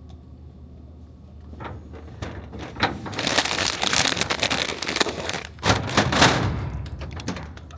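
Crinkling and rustling, like plastic packaging being handled, with rapid small clicks and a few knocks. It builds about two seconds in and is loudest in the middle before fading near the end.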